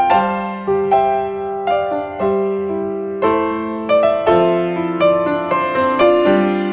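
Background piano music: single notes and chords struck about twice a second, each ringing and fading away.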